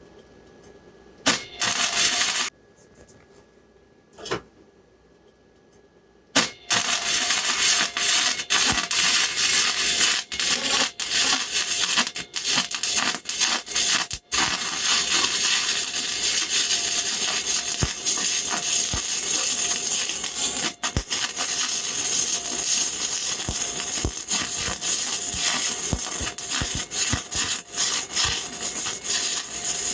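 Flux-core wire welder arcing: two short crackling tries in the first few seconds, then a long continuous sputtering, crackling weld from about six seconds in.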